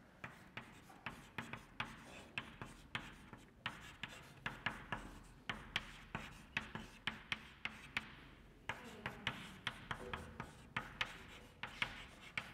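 Chalk writing on a blackboard: a string of quick, irregular taps and short scratches as each letter stroke is made, several a second, with a brief lull a little past the middle.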